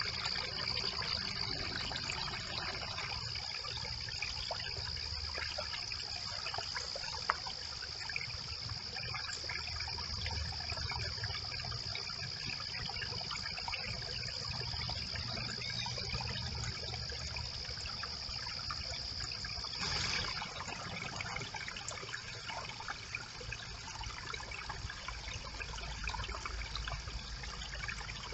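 Brook water trickling steadily, with a steady high-pitched whine running underneath and a single sharp click about seven seconds in.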